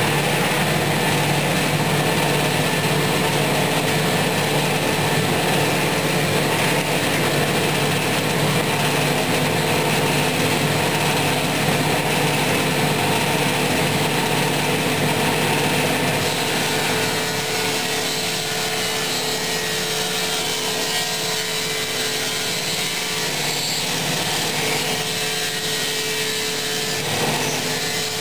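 Table saw fitted with a 3/4-inch stacked dado blade set, running steadily while cutting dado grooves across a wooden cabinet panel. It gets a little quieter about two-thirds of the way through.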